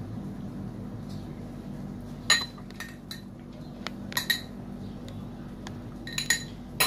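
Metal spoon clinking against a drinking glass as crushed Oreo crumbs are spooned and pressed into a bottom layer: a series of short, ringing clinks starting about two seconds in, over a steady low hum.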